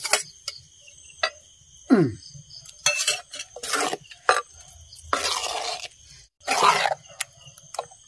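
Steel spoon stirring curd into a clay pot of rambutan pachadi, with sharp clinks against the pot and several longer scraping swishes. A brief falling tone sounds about two seconds in.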